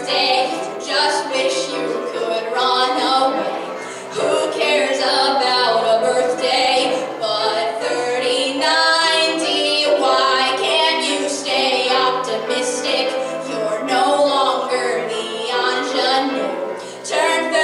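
A young woman sings a musical-theatre song into a microphone, with vibrato on the held notes, over an accompaniment of sustained low notes.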